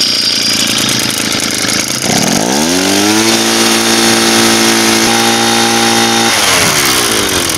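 Handheld two-stroke gas leaf blower running at a low speed, then revved up about two seconds in, held at full throttle for about three seconds, and let back down near the end, blowing ash off a burning stump's embers.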